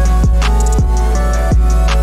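Background music: a deep electronic kick drum that drops sharply in pitch on each hit, over held synth chords and steady high ticking.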